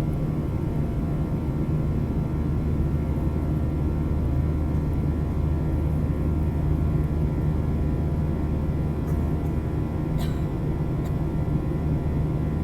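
Steady drone of a jet airliner's engines and airflow heard from inside the passenger cabin, a deep even hum with faint steady tones above it. A brief click about ten seconds in.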